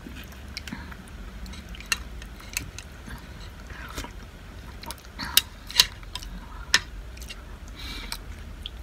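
A person eating from a ceramic plate with a spoon and fork: scattered sharp clicks of cutlery and mouth sounds over a steady low hum, the loudest two clicks a little past the middle.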